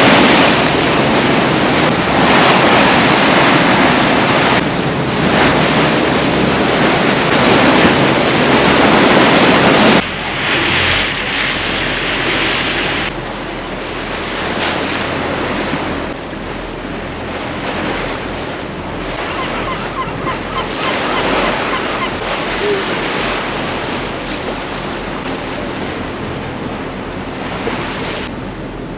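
Wind buffeting the microphone over the rush of sea water past a moving boat, a steady loud noise that drops abruptly to a quieter wash about a third of the way in.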